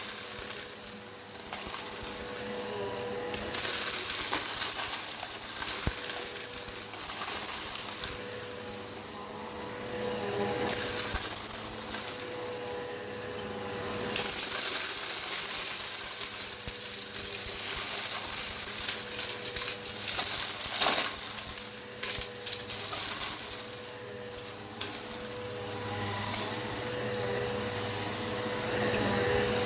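Eureka PowerSpeed upright vacuum running with a steady motor whine, its rushing suction swelling and easing as it is pushed back and forth. Rock salt and lentils click and rattle as they are sucked up.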